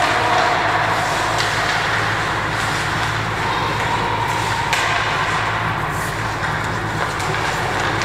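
Ice hockey rink sound during play: a steady low hum under a continuous wash of noise from skating on the ice, with a few faint sharp clicks.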